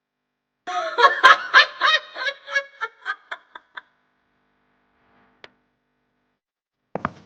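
A run of quick giggling that starts loud and fades out over about three seconds, followed by a single sharp click and a couple of thuds near the end.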